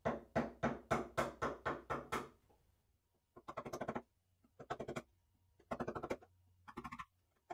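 A wood chisel pushed by hand into the board, paring the outside edge of a hinge mortise. It makes a run of about ten short scraping cuts at roughly four a second, then four quick clusters of fainter, rapid scrapes.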